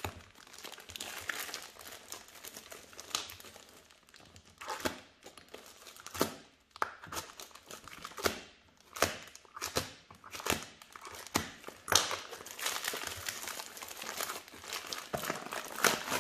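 Plastic poly mailer bag being torn open and crumpled by hand: irregular crinkling crackles with short tearing rips.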